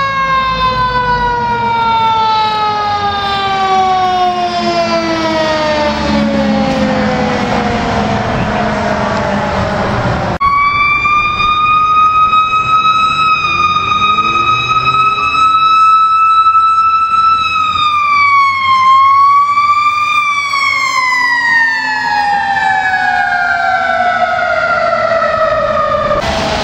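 Fire engine siren, a mechanical Q-type siren, winding slowly down in pitch for about ten seconds, with engine rumble beneath. After an abrupt cut a second fire engine's siren is held high, dips and climbs back once, then winds down again near the end.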